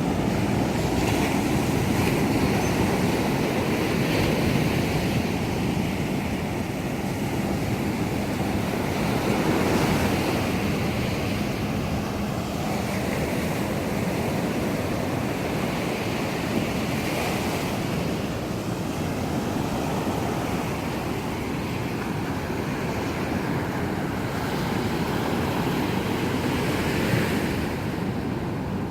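Surf breaking and washing on a beach, with wind buffeting the microphone. A faint steady low hum runs under it for the first half and fades out.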